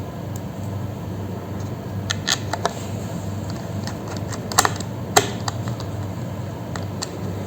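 A few small, sharp clicks and taps over a steady low hum.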